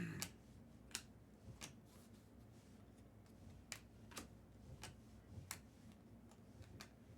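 Faint, irregular light clicks and taps of trading cards being handled and flicked through, roughly one every half second to second.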